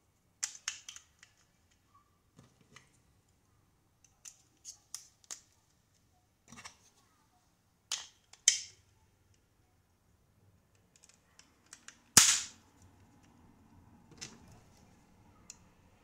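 Small plastic clicks and snaps from a Toyota key fob being handled as a coin-cell battery is fitted and the case halves are pressed shut, a dozen or so sharp clicks spread unevenly. The loudest snap comes about twelve seconds in, followed by a brief light rustling.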